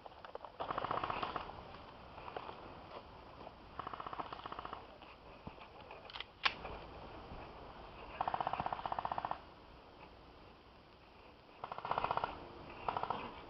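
Airsoft guns firing short full-auto bursts of rapid clicking shots, five bursts in all, the last two close together near the end. A single sharp crack stands out about six seconds in.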